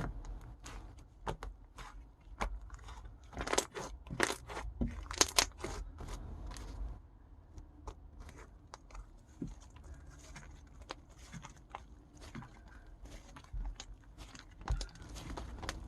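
Slime being squeezed and poked by hand, giving a run of sharp clicks and crunchy pops, loudest through the first half; after about seven seconds in it settles to softer, sparser crackling.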